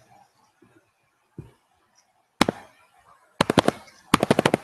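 Sharp clicks: two single clicks, then two quick runs of about half a dozen clicks each in the last second and a half.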